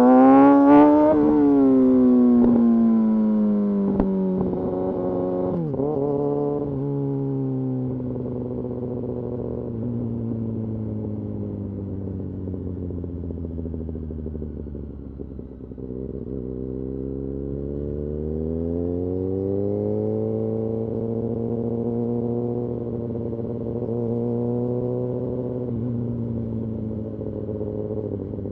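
Kawasaki Ninja ZX-6R inline-four sportbike engine under way. Its revs fall after a sharp throttle blip at the start, blip twice more about six seconds in, hold fairly steady, then drop briefly and climb again from about sixteen seconds in.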